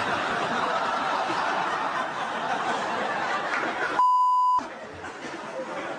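Several people laughing hard for about four seconds, cut by a half-second censor bleep, a single high steady tone with everything else muted, after which quieter laughter resumes.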